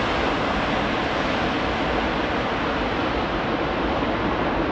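Jet airliner engines, a loud, steady rush of noise with no breaks.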